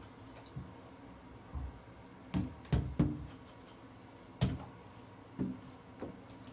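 Toys knocking and thudding as they are pushed about and dropped: about seven separate knocks at irregular intervals, the loudest about three seconds in.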